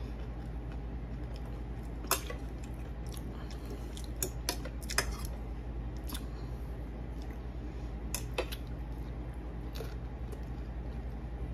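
Eating sounds from a meal of spaghetti and pizza: a scattering of short clicks and taps, like cutlery or dishes, with chewing, over a steady low hum.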